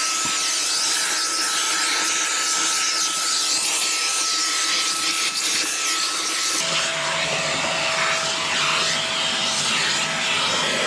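Vacuum cleaner running with a loud steady rush of air and a thin whine, the whine dropping to a lower pitch about two-thirds of the way through as the airflow changes.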